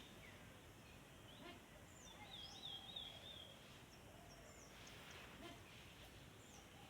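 Faint bird chirping over quiet background noise, with a short wavering run of high notes about two seconds in and scattered single chirps after it.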